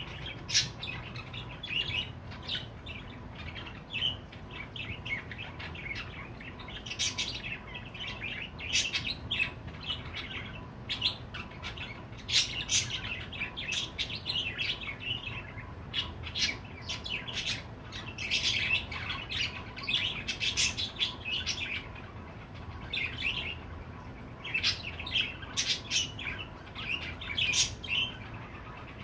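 Budgerigar chirping and warbling in quick runs of short notes, in bursts with brief pauses between them, some notes sharp and high.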